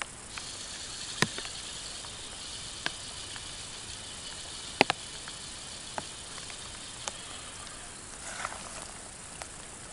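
Steady high chirring of insects at night, with a few scattered sharp clicks and taps.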